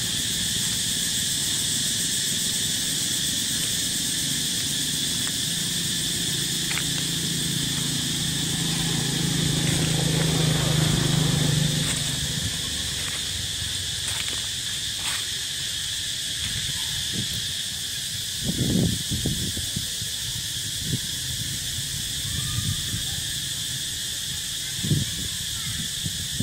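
Steady chorus of insects buzzing in the trees. A low hum swells under it and stops about halfway through, and a few short low sounds come near the end.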